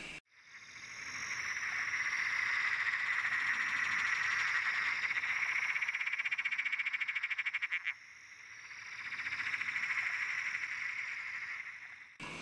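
A loud, rapidly pulsing high trill of calling animals that swells up, drops away abruptly about two-thirds of the way through, then builds again.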